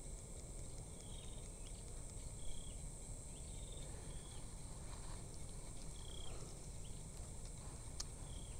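Insects calling: a steady high-pitched drone with short chirps repeating every second or two, over a low rumble of wind.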